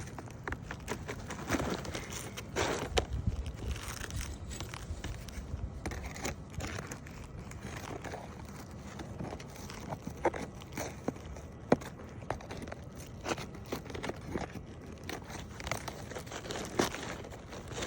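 A brittle, weathered asphalt roof shingle being pried and torn off the roof, with irregular scraping, cracking and crunching as it breaks apart. A sharp crack comes about twelve seconds in.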